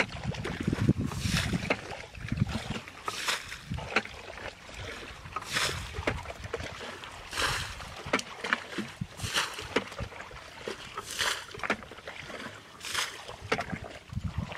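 Plastic bucket scooping muddy water and throwing it out, a splash about every two seconds with sloshing between: a ditch being bailed dry to catch fish the traditional Khmer way.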